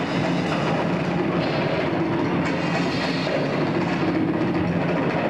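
Live rock band playing loud, with drum kit and electric guitar blended into a dense, steady wall of sound.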